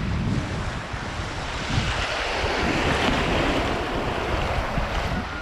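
Small ocean surf waves washing in and sloshing around, with wind gusting on the microphone; the wash swells to its loudest about halfway through.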